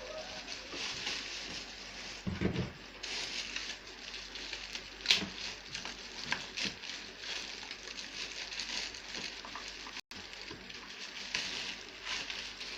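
Plastic packaging crinkling and rustling as a speaker is unwrapped by hand, with a few sharp clicks and a dull knock a little over two seconds in.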